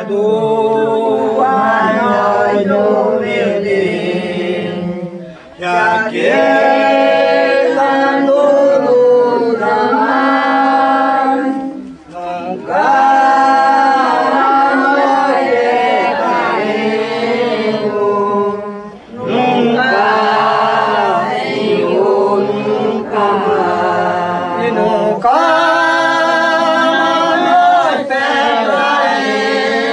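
Penitents' group of voices singing an unaccompanied devotional chant in long, slow phrases, with brief pauses between them.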